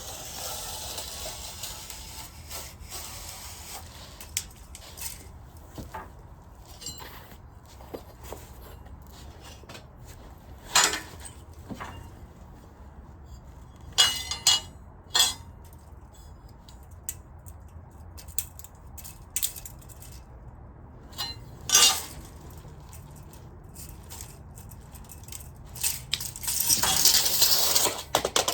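Scattered clinks and knocks of steel pieces being handled and set down, a few sharp ones standing out, with a denser run of metallic clatter near the end.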